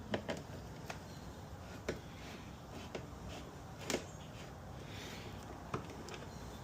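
A few short, light clicks and taps from a T25 Torx driver and small bolts as the speaker bolts are undone by hand, spaced out over quiet garage background; the loudest comes about four seconds in.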